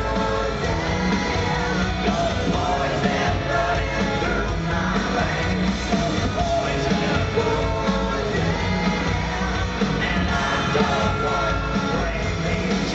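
Live rock band playing with a singer's voice over it, loud and steady, recorded from the crowd.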